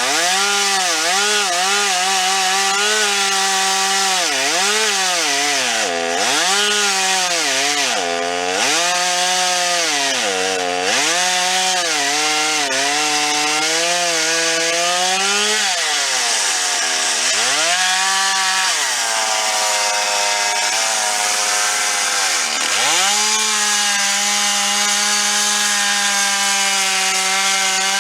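Stihl two-stroke chainsaw cutting wood, its engine note dipping again and again as the chain bogs in the cut and recovers. About 16 s in it drops to a low idle, then revs back up about 23 s in and holds steady at full throttle.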